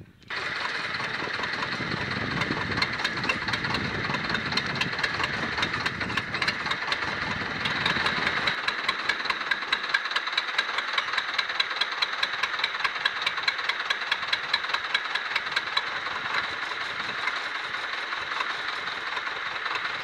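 Escorts diesel tractor engine running hard with a rapid, even knock, straining to drive its wheels out of deep mud.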